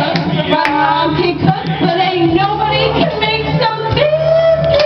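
A woman singing karaoke into a handheld microphone over recorded backing music.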